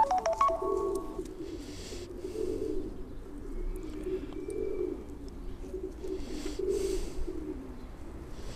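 Pigeons in the loft cooing over and over, a low rolling coo about every second. In the first second, a phone keypad beeps a quick run of tones that then stop.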